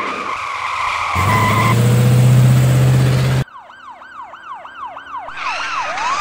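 Produced sound effects for an animated video intro. Held tones, then a loud low hum with a rising hiss that cuts off abruptly about three and a half seconds in. After that comes a string of repeated swooping tones, about three a second.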